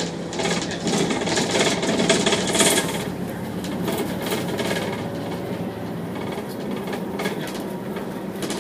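Volvo B7TL double-decker bus with its 7.3-litre diesel engine running steadily as it drives along, heard inside the upper deck, over a constant hum. Many quick rattles and rubbing clicks from the bodywork, busiest in the first few seconds.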